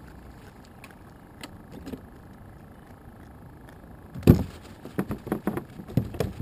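Faint clicks of handling, then a loud knock about four seconds in and a quick run of sharp knocks and rattles: a just-landed fish being unhooked and handled in a kayak.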